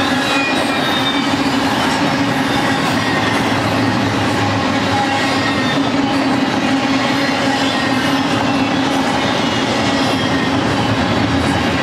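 Double-stack intermodal train's well cars rolling past at close range: a steady, loud rolling of steel wheels on rail, with a faint high-pitched wheel squeal running through it.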